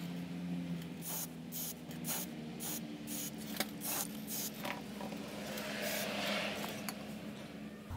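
Aerosol can of Rust-Oleum self-etching primer spraying in many short hissing bursts, then one longer spray near the end, laying down a first coat of primer.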